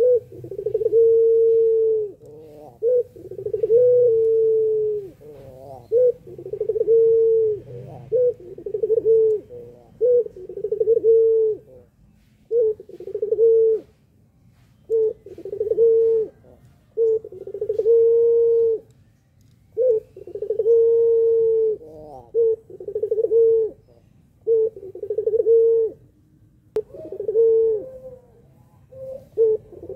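Caged Barbary dove of the 'pelung' long-coo type, cooing over and over: low, drawn-out coos about a second long, one after another with short breaks and a few longer pauses.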